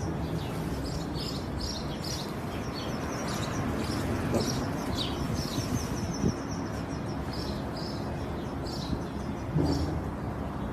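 Small birds chirping repeatedly, with short high chirps and a quick trill over a steady background hiss.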